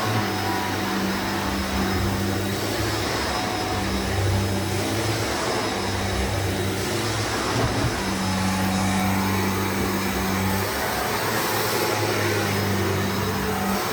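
Shark NZ780UKT vacuum cleaner running steadily, with a low hum in its sound that cuts in and out every second or two.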